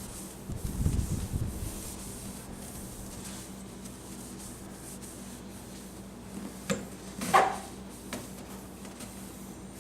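Cloth rubbing polishing compound off a plastic headlight lens, a faint steady scuffing. A low bump about a second in and a short louder knock about seven seconds in.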